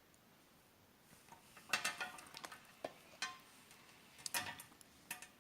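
A series of light clinks and knocks of small hard objects being handled, coming in two denser clusters, some strikes leaving a brief high ring.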